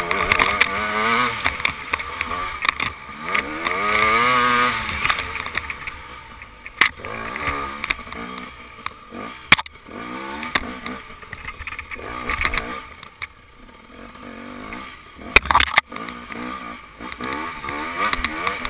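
KTM dirt bike engine revving up and down under hard riding, the pitch climbing to a peak about four seconds in and dropping away after. Sharp knocks come every so often, the loudest about fifteen seconds in.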